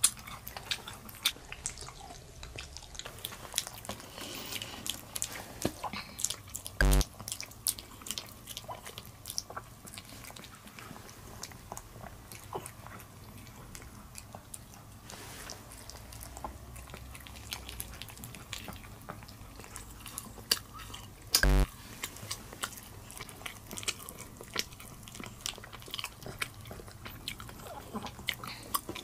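Pomeranian eating small treats close to the microphone: many small wet clicks of licking and chewing. Twice a short, louder knock stands out.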